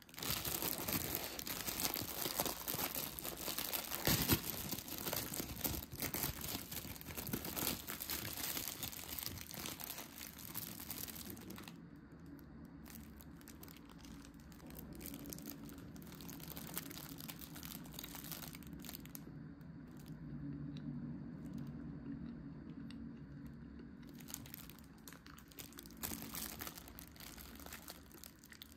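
A wrapper being torn open and crinkled, with a dense crackle for about the first twelve seconds, then quieter rustling and two more bursts of crinkling later on.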